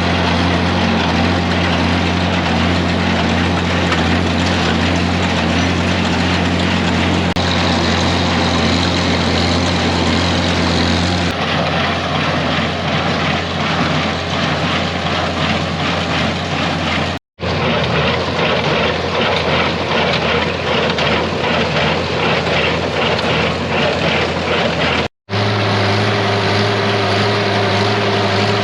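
Farm tractor engine running steadily while pulling a small square baler through straw. The baler adds a rhythmic clatter through the middle stretch, and the sound breaks off for an instant twice.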